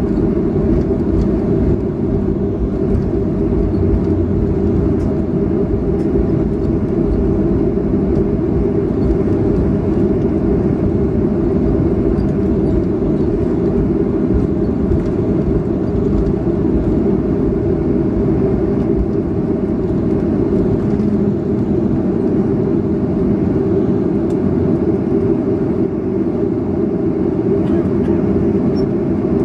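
Steady cabin noise of a Boeing 737-500 taxiing on the ground, its CFM56 engines running evenly at low thrust: a constant low rumble with a faint hum.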